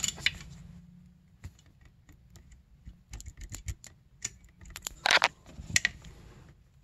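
Snowmobile power valve cable being worked loose by hand from its servo: irregular small clicks and rattles of the cable end and housing knocking against engine-bay parts, busiest a few seconds in and loudest about five seconds in.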